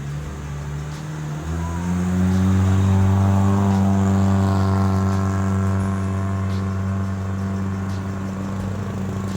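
A motor vehicle's engine revs up about a second and a half in, then runs steadily at the higher speed.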